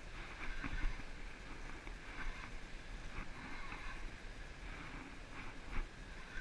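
Water lapping and slapping against a plastic sit-on-top kayak, with scattered light ticks and knocks about once or twice a second, while a fish is played on a hard-bent rod. Wind rumbles on the microphone throughout.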